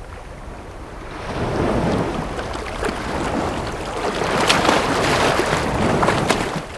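Water splashing as a snorkeler in fins lies down in shallow sea and swims off kicking. The splashing grows from about a second in and is loudest near the end, with wind on the microphone.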